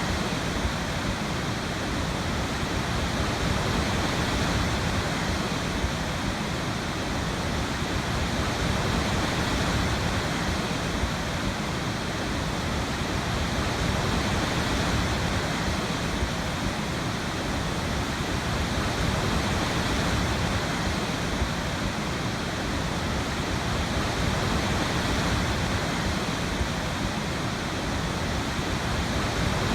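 Waterfall: falling water crashing in a steady, unbroken rush, with a deep rumble underneath.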